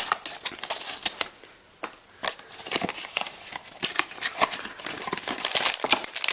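Packaging of a Vinylmation blind box being handled and opened by hand: irregular rustling, crinkling and small clicks, with a brief lull about a second and a half in.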